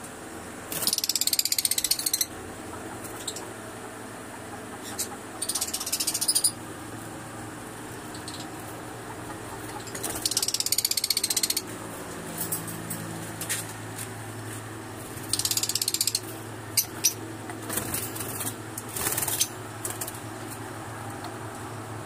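Lovebirds giving about five harsh, high-pitched chattering bursts, each a second or so long and a few seconds apart, over a steady low hum.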